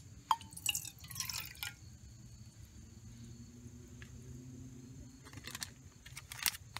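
Water poured from a plastic measuring cup into an empty metal camping pot: a brief splash lasting about a second and a half, followed by a few scattered drips.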